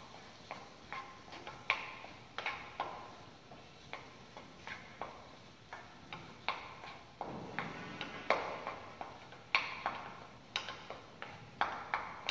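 Wooden spoon knocking and scraping against a steel frying pan while stirring mashed potato in butter: irregular light clicks, one or two a second, with short scraping strokes between them.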